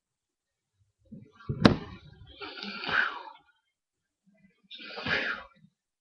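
A person's breathy, non-word vocal sounds close to a microphone in a small room, in short bursts, with a sharp click about one and a half seconds in.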